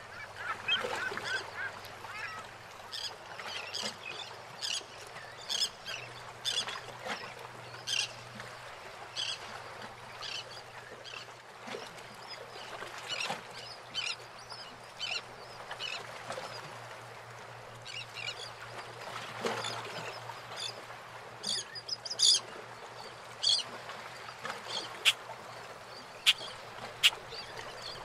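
Harbour water lapping and slapping around moored fishing boats, with many short, irregular sharp sounds over it and a few louder clicks near the end. A faint steady low hum runs underneath.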